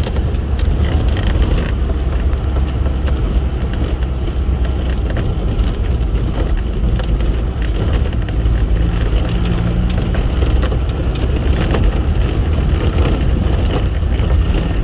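Land Rover on the move, heard from on board: a steady low engine and road rumble with a noisy wash over it and scattered small rattles and knocks.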